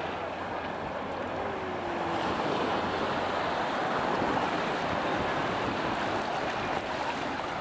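Small waves washing up over the shallows of the shore, a steady rushing wash that grows louder about two seconds in, with some wind on the microphone.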